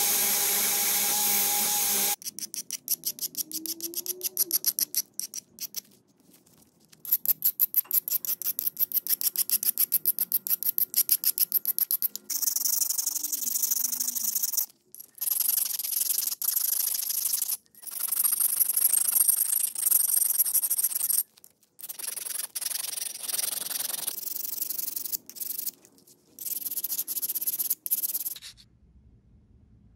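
Drill-driven wire cup brush running against a metal bottle opener for about two seconds, then hand files rasping the metal in quick, repeated strokes with short pauses. A round file works the mounting hole and a flat file works the face. The filing stops shortly before the end.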